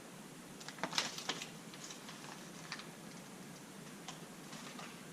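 Light clicks and taps of small plastic toys and packaging being handled, a quick cluster about a second in, then a few scattered single clicks.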